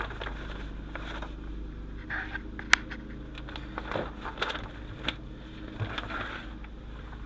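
Scattered small clicks and rustles of wiring and connectors being handled, with one sharp click about two and a half seconds in, over a steady low hum.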